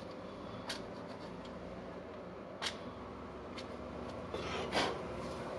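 A few faint, scattered clicks of small drill parts being handled, with a short scrape or rustle near the end.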